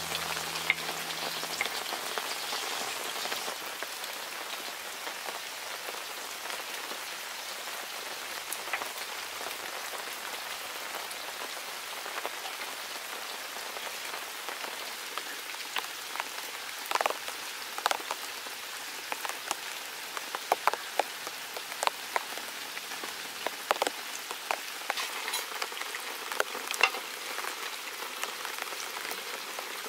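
Steady rain pattering on surfaces, with scattered sharp taps of a knife on a wooden cutting board and dishes being set down, most of them in the second half.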